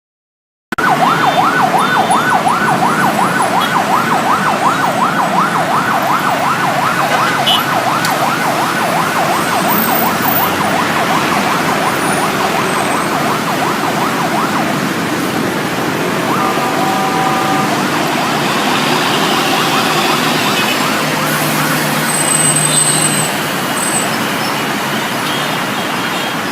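Ambulance siren on a fast yelp, rising and falling about three times a second over road traffic noise. The yelp grows fainter about halfway through, and a short steady horn-like tone sounds about two-thirds of the way in.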